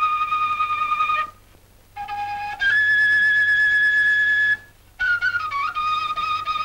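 Solo flute playing a slow melody: long held notes with vibrato broken by two short pauses, then a quicker, ornamented phrase near the end.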